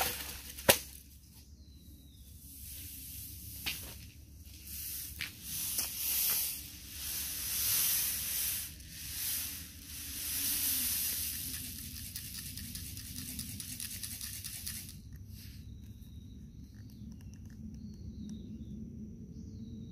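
Pelleted lettuce seeds rolling and rattling across a plastic hand seeding plate as it is shaken back and forth, a hissing rustle that swells and fades in waves. A sharp click comes about a second in.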